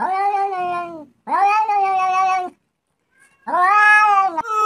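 A cat meowing three times, each meow long and drawn out, about a second apiece, with short pauses between.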